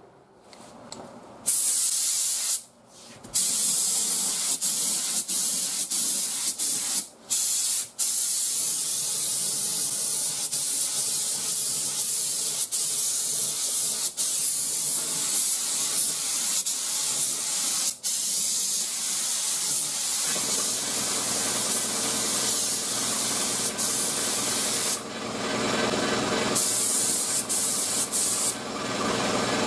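Gravity-feed compressed-air spray gun hissing as it sprays primer, cutting off briefly a few times between passes. From about twenty seconds in the hiss sounds fuller and lower.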